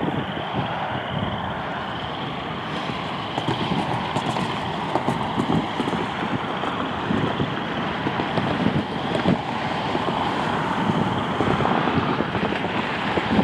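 Airbus A350's Rolls-Royce Trent XWB turbofan engines running as the airliner rolls on the ground: a steady jet rush with a faint high whine. Wind buffets the microphone throughout.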